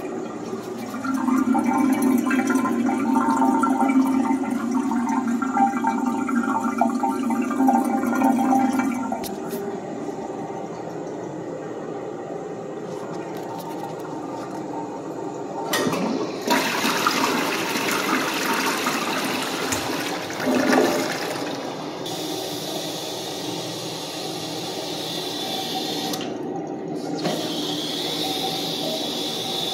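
Eljer Patriot toilet flushing: a loud rush of water for about eight seconds, then the bowl and tank refilling with a steady rush. In the last several seconds the old ball-float fill valve hisses with a steady high whine as the tank fills.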